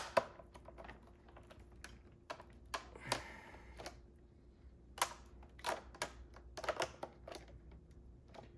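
Irregular plastic clicks and knocks as the Shark Navigator vacuum's filter housing and parts are handled and fitted back into place, with a brief scrape about three seconds in.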